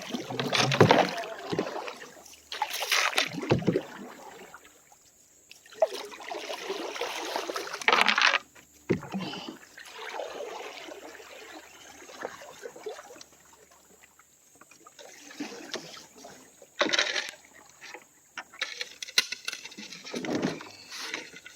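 Canoe paddle strokes and water splashing and sloshing around the hull, in irregular bursts with short pauses between.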